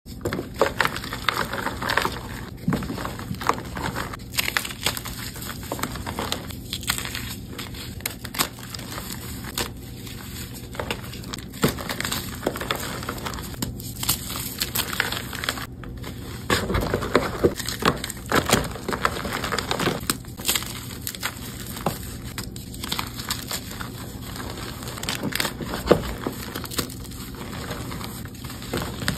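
Blocks of dyed gym chalk being snapped, squeezed and crumbled by hand, giving a dense run of irregular crunches and crackles as they break down into powder.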